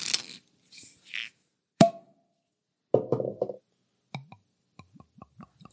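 Beer handled and poured into a glass: a single sharp glass clink about two seconds in, then from about four seconds a quick, even run of small glugs, about five a second, as liquid comes out of a bottle.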